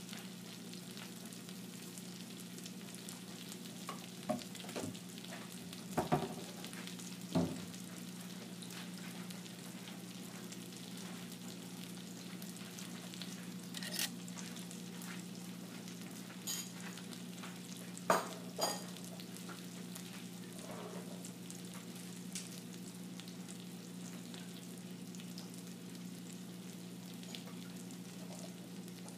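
Food sizzling in a frying pan over a steady low hum, with short clinks and knocks of a utensil against the pan now and then, the loudest a little past halfway.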